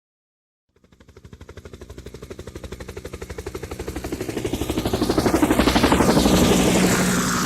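Helicopter rotor blades chopping in a fast, even rhythm over engine hum, fading in about a second in and growing steadily louder as it approaches, loudest around six seconds in.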